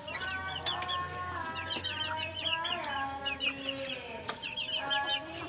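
Young chickens, about two months old, peeping in clusters of quick high chirps that come and go every second or so.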